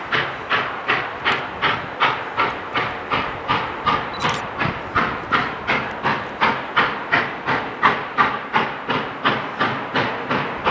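Norfolk & Western 611, a J-class 4-8-4 steam locomotive, working hard as it starts away, its exhaust chuffing in a steady, even beat of about two and a half a second.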